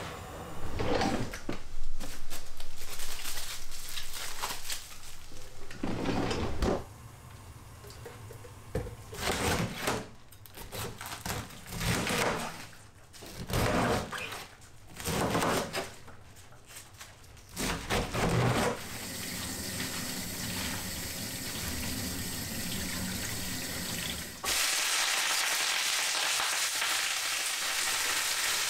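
Kitchen clatter, then a knife cutting a cabbage on a plastic cutting board in short bursts of chops. After that comes a steady hiss of running water, and from about three quarters in, cabbage sizzling as it stir-fries in a frying pan over a gas burner.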